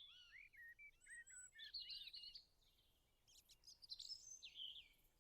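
Faint outdoor birdsong: a quick series of short chirping notes for the first couple of seconds, then a short pause, then a few more chirps and calls.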